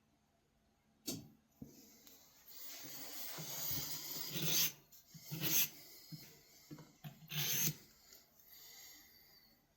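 Pocket-knife blade scraped by hand against an abrasive in about four strokes of uneven length, the longest in the middle: sharpening or filing the blade.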